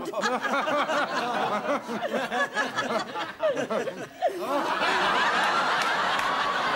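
A studio audience laughing, with many voices overlapping. About four and a half seconds in it builds into a fuller, steadier wave of laughter.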